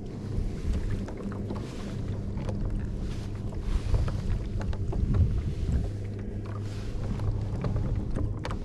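Water sloshing against a kayak hull with wind on the microphone, over a steady low hum and scattered small knocks and splashes.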